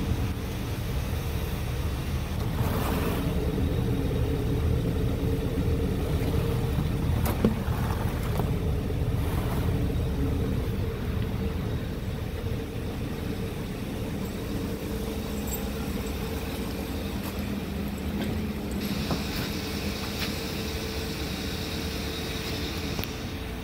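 A 2015 Kia Sportage's 2.4-litre four-cylinder engine idling steadily.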